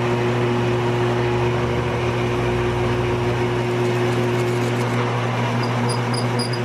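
Bench drill press motor running steadily with a hum while a twist bit drills out the bore of a brass part. A thin high whine joins in near the end.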